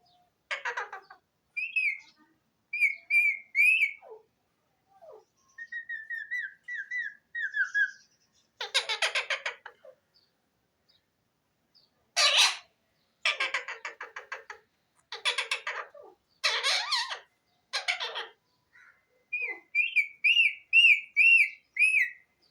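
Pet parrot calling: runs of short, quickly repeated whistled chirps alternate with bouts of louder, harsh squawks.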